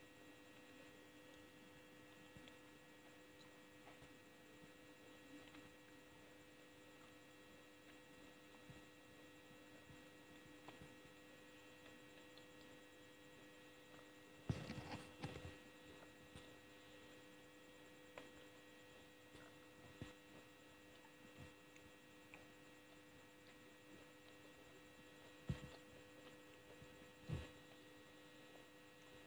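Gummy candy being eaten close to the microphone: a cluster of mouth clicks and chewing sounds about halfway through, then a few single clicks later, over a steady electrical hum.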